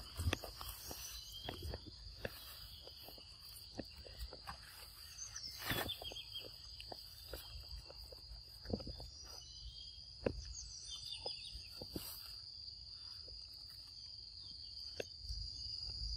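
Steady high-pitched drone of insects in the forest, with scattered faint ticks and rustles of footsteps on leaf litter and a couple of brief chirps.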